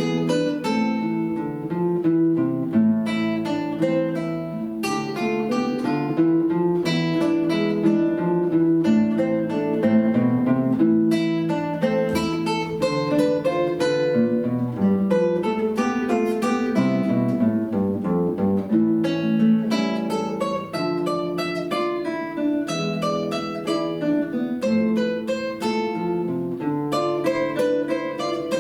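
Two acoustic guitars playing a duet: a plucked melody over a picked and strummed accompaniment, notes ringing on continuously.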